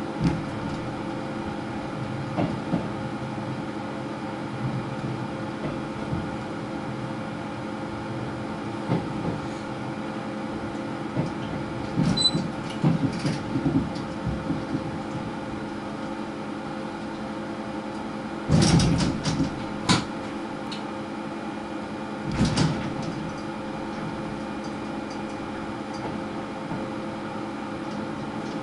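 Seoul Subway Line 5 train heard from inside its driving cab as it runs slowly: a steady hum holding several steady tones, broken by scattered clunks and rattles, the loudest cluster about two-thirds through and another shortly after.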